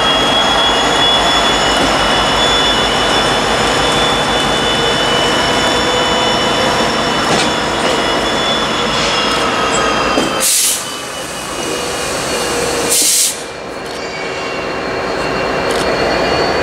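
A pair of diesel locomotives, a Union Pacific EMD SD9043MAC and a CP GE unit, running as they roll slowly past, with a steady high-pitched whine over the engine sound. Two short loud hisses come about ten and thirteen seconds in.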